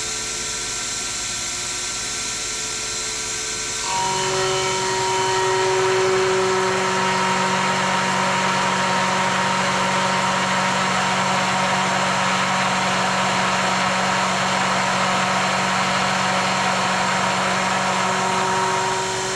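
Sherline mill's spindle motor running steadily. About four seconds in, the end mill begins a 0.5 mm pass along the edge of a brass bar as the table feeds across, adding a louder rough cutting hiss and a steady hum. The pass ends just before the end and the spindle alone runs on.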